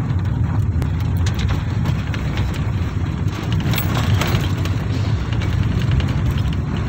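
Steady low rumble of engine and tyres heard from inside a moving car's cabin, with faint scattered ticks, as it overtakes a bulk cement tanker truck.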